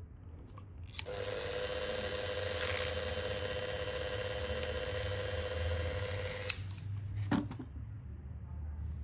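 Dremel rotary tool drilling into a piece of abalone shell. The motor starts about a second in, runs at a steady high whine for about five seconds and cuts off, followed by two brief knocks.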